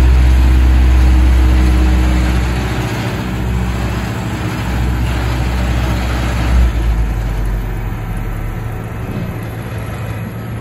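Heavy diesel engines of a Cat AP655D asphalt paver and the dump truck unloading into it, running with a deep low rumble. The rumble eases off a little after about two and a half seconds, and there is a brief knock about six and a half seconds in.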